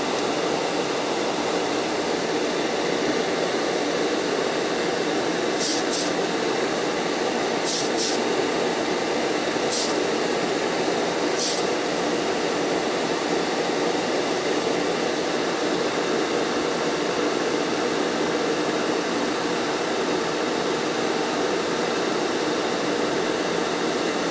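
Spray booth extractor fan running steadily, with six short hisses of an aerosol can of primer: two close pairs about six and eight seconds in, then single bursts near ten and eleven and a half seconds.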